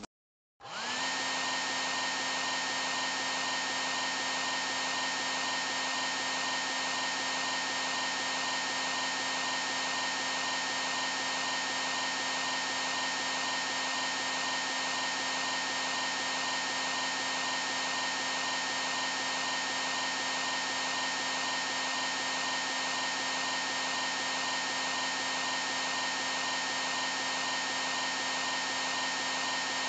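Hair dryer switched on about half a second in. It spins up within a second, then runs steadily with a constant high whine over its fan noise.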